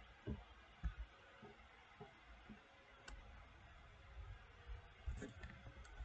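Near silence: quiet room tone with a few soft clicks and low knocks, the louder ones about a third of a second and about a second in, and a small cluster near five seconds.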